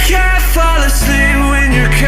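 Pop song with a steady bass line and a sung melody.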